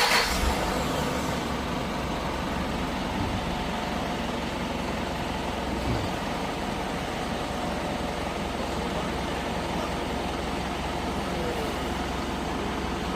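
Hyundai All New Mighty truck's turbocharged diesel engine just started after a 10-second preheat, settling straight into a steady idle.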